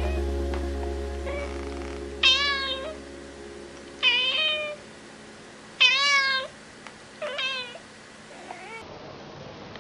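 A domestic cat meowing four times, short rising-then-falling meows about two seconds apart, the last one softer. Background music fades out during the first few seconds.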